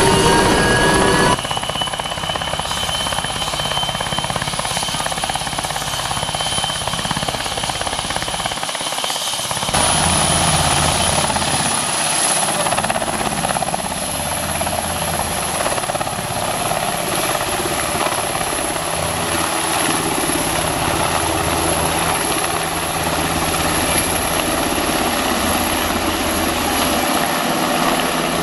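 NH90 (Hkp 14) twin-turbine military helicopter running, with its rotor noise and a steady high-pitched whine. Heard briefly from inside the cockpit, then from outside as it runs on the ground and lifts off.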